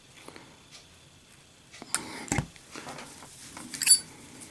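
Zippo windproof lighter with a steel insert being worked: sharp metallic clicks of the lid and flint wheel, then a loud bright clink with a short ring about four seconds in.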